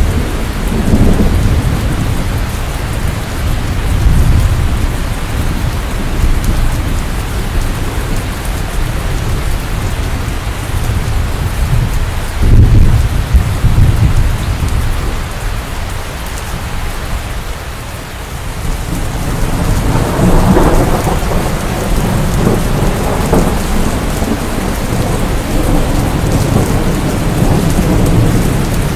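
Steady heavy rain with rolling thunder: low rumbles swell and fade several times, the loudest about halfway through, and another long one building about two-thirds of the way in.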